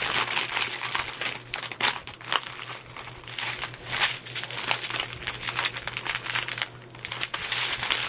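Clear plastic bags crinkling and rustling as small packets of diamond-painting drills are handled and pulled out of a larger plastic bag, in irregular crackly bursts.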